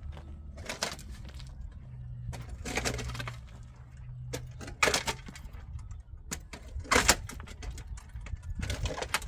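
Pickaxes striking into stony, dry soil: about five heavy blows roughly two seconds apart, with gravel and clods scattering. A low steady rumble runs underneath.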